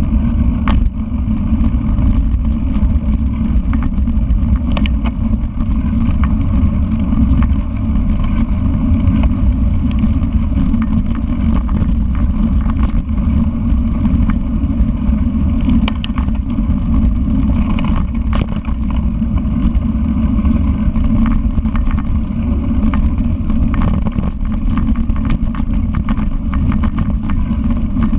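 Mountain bike rolling over a dirt trail, heard through a bike-mounted camera: a steady low rumble of wind on the microphone and tyres on dirt, with scattered clicks and rattles from bumps.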